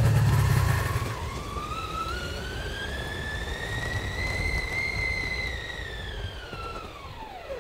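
Snowcat's engine and drive straining up a snowy hill. After a loud low rumble in the first second comes a long whine that rises in pitch, holds, then drops steeply near the end as the machine slows on the climb, over a steady hiss.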